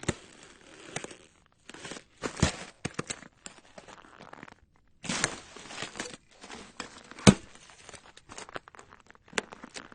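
Heavy footsteps crunching on ice: irregular crackling crunches broken by short pauses, with a few sharp, louder cracks, the loudest about seven seconds in.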